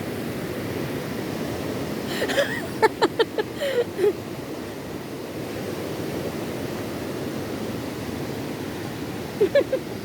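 Waterfall's rushing water: a steady, even roar of falling and churning water.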